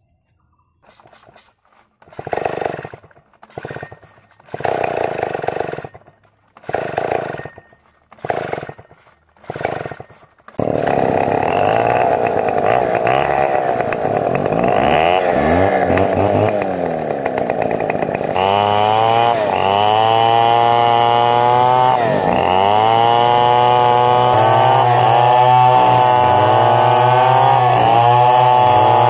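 Stihl 070 two-stroke chainsaw: several short bursts of engine noise, then about ten seconds in it runs on continuously at high revs. It is ripping lengthwise along a log to cut boards, its pitch dipping and recovering again and again as the chain bogs under load.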